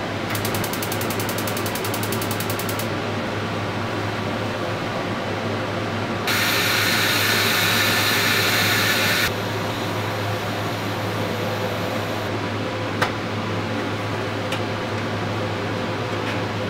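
Pressure cooker on a gas stove: a steady low hum with a rapid high ticking in the first couple of seconds, then a loud hiss of steam from the cooker for about three seconds in the middle that starts and stops abruptly. A single sharp click comes about three-quarters of the way in.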